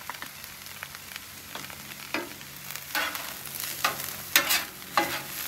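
A metal scraper pushes and tosses corn kernels across a hot steel flat-top griddle over a faint sizzle. Sharp scraping strokes come about once a second from about two seconds in.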